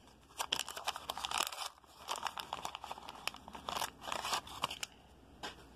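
Plastic wrapper of a baseball card rack pack crinkling and tearing in irregular bursts as the pack is pulled open.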